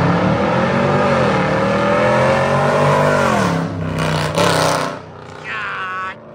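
Jeep Grand Cherokee Summit's 5.7 Hemi V8 with its catalytic converters deleted, accelerating past loudly. The exhaust note climbs for about three seconds, then drops sharply as the Jeep goes by, with a short rush of noise as it passes before fading away.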